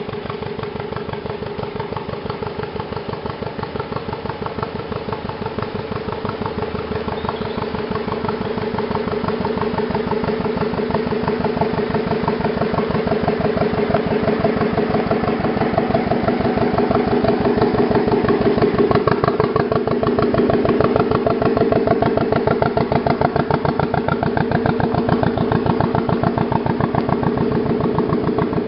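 Engine of a vintage working narrowboat running under way with a steady, even chugging beat, growing louder as the boat draws close and passes.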